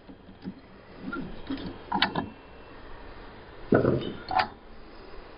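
Pliers clicking and knocking against an Ender 3's hotend as softened, hot filament is picked off the nozzle. There are scattered light clicks, a quick cluster about two seconds in, and a heavier knock a little later.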